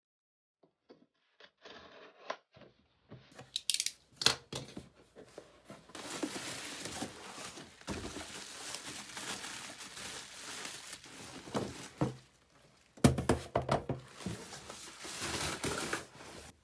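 A cardboard parcel being unpacked by hand: the taped box is torn open and handled with a few sharp clicks and scrapes, then a bubble-wrapped item is pulled out, its plastic wrap crinkling and rustling. The rustling is loudest near the end.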